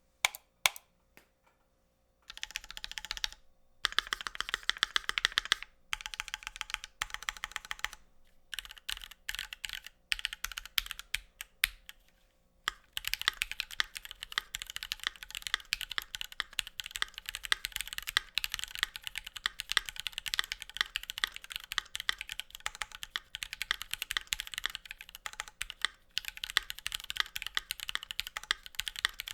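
Typing on a Keychron Q2 aluminium-case mechanical keyboard with SP Star Meteor White linear switches. A few single key presses come first, then several short bursts of typing, and from a little before halfway, fast continuous typing.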